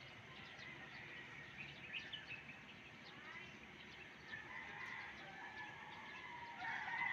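A rooster crowing, faint at first and loudest near the end.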